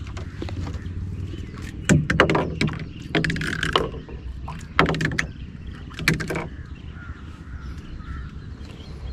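Half a dozen irregular knocks and thumps against the hollow hull of a small fiberglass boat as rope and gear are handled aboard while the anchor is brought in.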